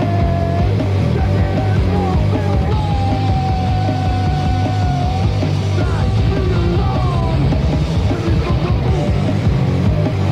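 Punk rock from a cassette demo recording: a loud, dense full-band sound with a long held, wavering note about a third of the way in.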